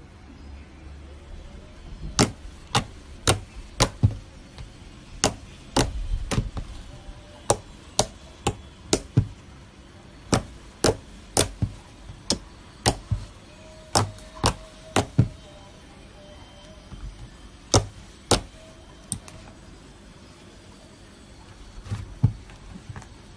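Thick slime being squeezed and poked by fingers, its trapped air pockets popping in an irregular run of sharp clicks, up to about two a second, thinning out to a few isolated pops in the last few seconds.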